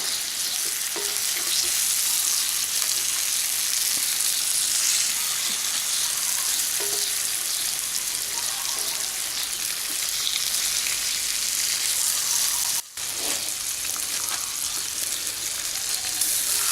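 Eggs frying in a pan with a steady sizzle. It cuts out for a moment about thirteen seconds in.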